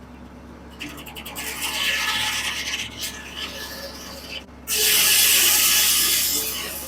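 1950 Corley circular sawmill blade cutting through a log, a loud hissing rasp that builds about a second in. It drops briefly and comes back louder for a couple of seconds before easing off near the end. A steady low hum runs underneath.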